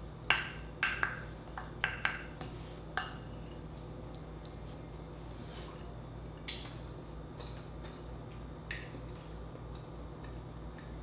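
Wooden spoon knocking and scraping against a glass bowl as butter-soaked rice is stirred: a handful of soft knocks in the first three seconds, then a couple of scattered clinks over a low steady hum.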